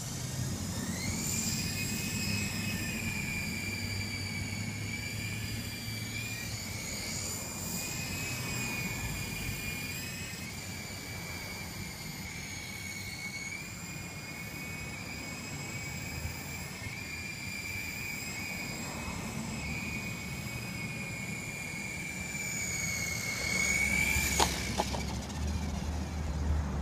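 Syma S033G radio-controlled toy helicopter's electric motors and rotors whining as it spins up, flies and comes down. The high whine wavers slightly in pitch and stops a couple of seconds before the end with a few sharp clicks as it touches down.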